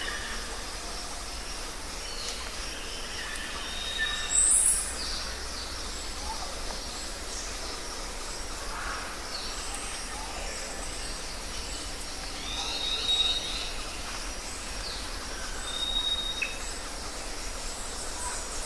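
Outdoor nature ambience: scattered bird chirps and short whistles over a steady background hiss, with one louder high chirp about four and a half seconds in.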